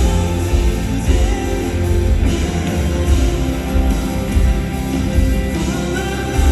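Live concert music: a band playing with a heavy low end, with singing.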